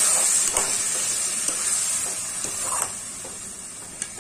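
Wet ground masala paste sizzling in hot mustard oil with fried potatoes in a kadai, as a spatula stirs it in with a few light scrapes and knocks against the pan. The sizzle slowly dies down, with one sharper spatula knock near the end.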